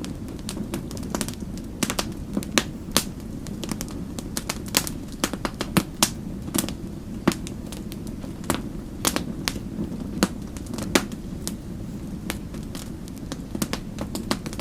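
Wood fire in a fireplace crackling: irregular sharp pops and snaps, some louder than others, over a steady low rumble of the burning fire.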